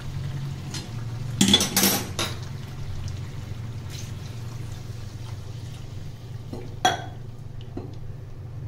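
Water poured into a metal kadai of masala-coated chicken, with a metal spatula knocking against the pan: a loud clatter about one and a half seconds in and a sharp clink near the end.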